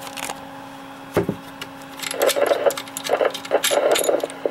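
Metallic clicks and rattling as the antenna connector is worked loose on a GE Rangr mobile two-way radio, over a steady low hum. From about two seconds in, a run of crackly bursts.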